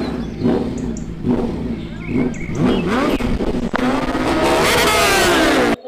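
Suzuki sport motorcycle engine revved in short bursts while held at the start line, then one long rev that climbs to a high pitch and stays there. The sound cuts off suddenly just before the end.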